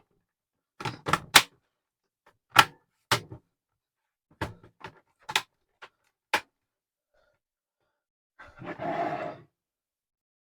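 Sharp clicks and knocks of a laptop's plastic case and parts being handled, scattered irregularly over about six seconds. Near the end comes a short breathy noise lasting about a second.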